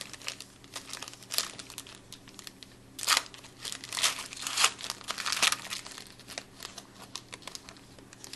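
Trading-card pack wrapper being torn open and crinkled by hand: an irregular run of crackles and crinkles, with the loudest rustles a few seconds in.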